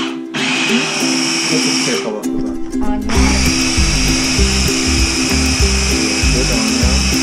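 Electric mini food chopper whirring as it chops soaked bread and onions, running in pulses: it stops briefly right at the start and again about two to three seconds in, then runs on steadily. Background music with a bass line plays throughout.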